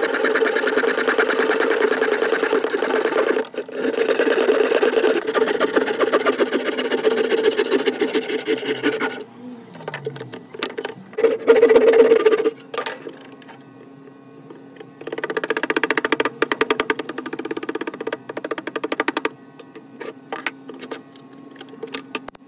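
Hand rasp or file strokes on a wooden knife-handle block, in fast runs of repeated rasping with a pause in the middle, over background music.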